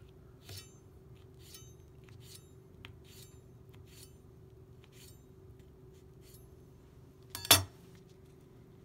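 Chroma S-41 chef's knife slicing and scoring a beet on a plastic cutting board: light taps of the blade on the board about once a second over a faint steady hum, then one loud clack of the knife on the board near the end.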